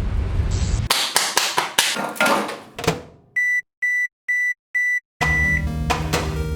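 Microwave oven humming for about a second, then a run of sharp knocks, then four short, evenly spaced high beeps, the signal that its cycle has finished. Music with a steady low bass starts about five seconds in.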